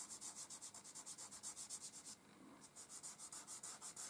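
A fingertip rubbing quickly back and forth over charcoal on drawing paper to blend it: faint, even scratchy strokes, about six a second, pausing briefly about two seconds in.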